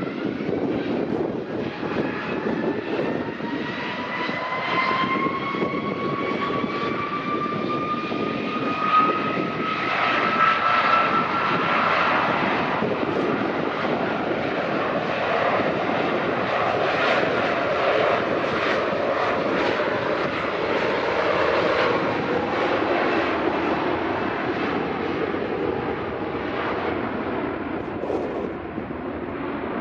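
Wide-body jet airliner's engines: a whine that climbs slowly in pitch over the first dozen seconds, then a steady loud roar.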